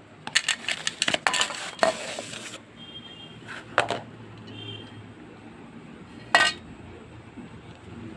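Metal clinks and rattles from a handled aerosol spray paint can: a quick run of rattling clicks for about two seconds, a couple more near the middle, and one sharper ringing clink later.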